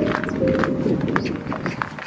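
Background music holding long, stepping notes, over a walker's footsteps on a snow-dusted path.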